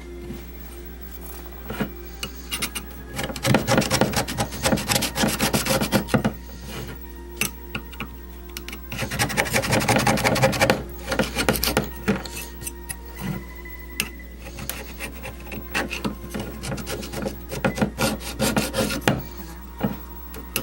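A blade scraping and rubbing old foam surround and glue residue off a vintage paper speaker cone and its basket edge, in rapid strokes, with two heavier spells of scraping about three and nine seconds in and lighter strokes between.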